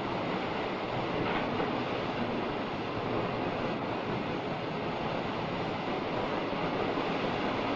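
A steady rushing noise with no distinct events.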